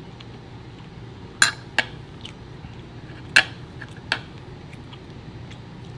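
A metal fork clinking against a ceramic dinner plate: a few sharp, short clinks, the loudest about a second and a half in, over a low steady hum.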